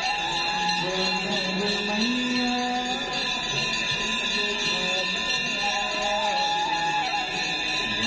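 Hindu aarti devotional music: a voice singing a slow melody that moves in held steps, with instrumental accompaniment and steady held tones underneath.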